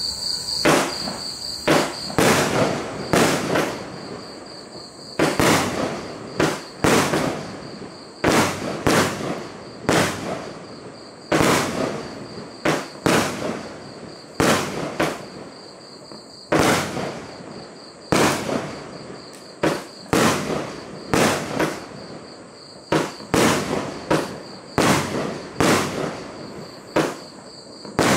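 Aerial fireworks going off one after another, a sharp bang a little more than once a second, each trailing off quickly. Crickets chirp steadily underneath.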